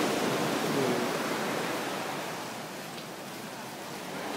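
Ocean surf washing onto a sandy beach: a steady hiss of breaking waves that swells about a second in and then eases.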